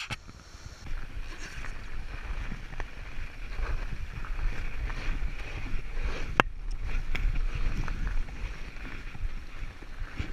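A fatbike riding over packed snow: the wide tyres roll through snow while wind buffets the camera microphone, with a rumble that picks up about a second in. Several sharp knocks from the bike come through, the loudest about six seconds in.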